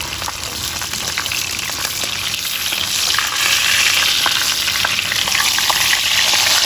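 Whole scored bream frying in hot oil in a pan: a steady sizzle dotted with crackles and pops, getting louder about three seconds in.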